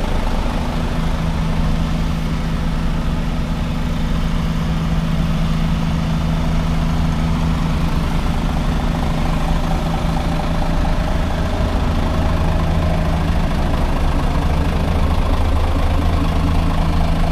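Heavy diesel engine idling steadily and close by, a constant low hum that does not change.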